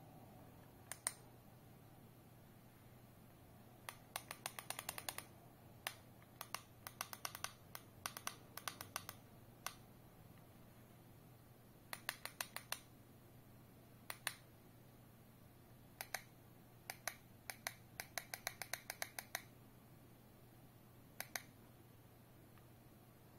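Buttons of a handheld plastic remote control clicking as they are pressed, in quick runs of several presses with short pauses between, over a faint steady hum.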